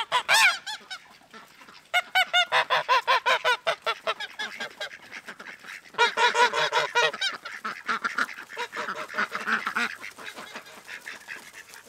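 Domestic geese honking and ducks quacking as the flock comes out, in quick runs of repeated calls. The calling is loudest and densest from about six seconds in, then thins out near the end.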